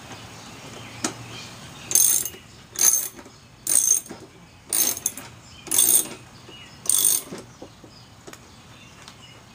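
Ratcheting wrench clicking in six short bursts about a second apart as it tightens a lawnmower blade bolt, each burst the ratchet running back between pulls.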